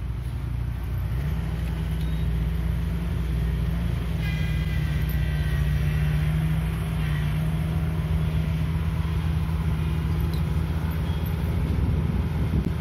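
Small engine of a riding rice transplanter running, its pitch rising about a second in and then held steady at higher revs as the machine strains to climb the paddy bank.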